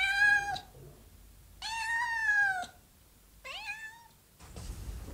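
Cat meowing three times, the middle meow longest and falling in pitch at its end, with a short rustle near the end.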